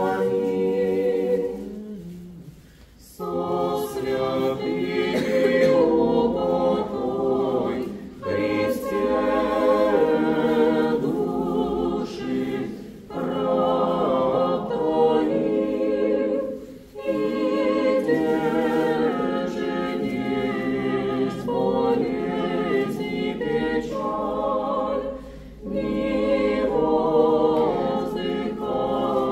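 Orthodox church choir singing unaccompanied liturgical chant in several voices, in phrases with brief pauses between them, answering the priest's closing words of the litany.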